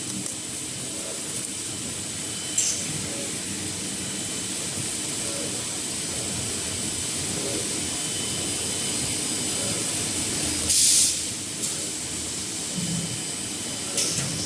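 Kitchen towel roll heat-shrink packing machine running steadily with a constant hiss, broken by short sharp hisses about two and a half seconds in and near the end, and a longer, louder one about eleven seconds in.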